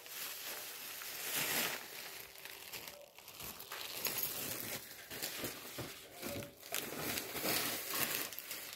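Thin clear plastic bag crinkling and rustling as it is handled, in irregular bursts.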